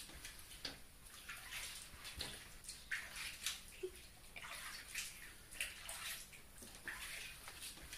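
Water splashing in a small plastic tub as a kitten is washed by hand, in short irregular splashes.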